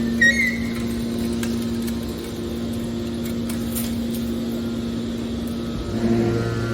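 Hydraulic power unit of a car shear baler running steadily, a constant hum with a brief high squeal right at the start and a deeper hum coming in near the end.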